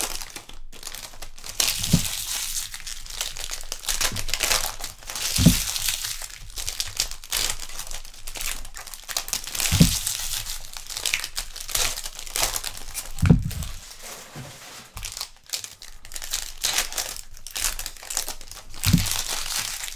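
Trading-card pack wrappers being torn open and crinkled by hand, a steady crackling rustle. About five dull thumps are spread through it.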